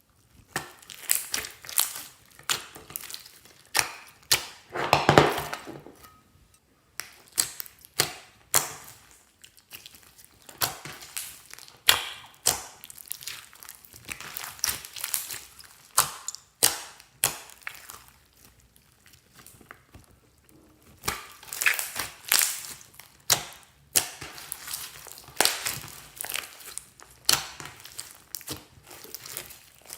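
Slime being squeezed and kneaded by hand, giving runs of sharp clicks and pops with a longer squelch about five seconds in.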